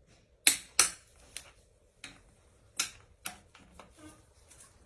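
Torque wrench tightening the bolts of a Mercedes 313 CDI engine to 60 Nm: sharp metallic clicks, a loud pair about half a second in, then lighter clicks every half second or so.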